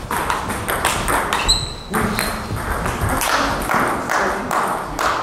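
Table tennis rally: the celluloid ball clicks off the bats and knocks on the table in quick exchanges, with a brief high squeak about one and a half seconds in.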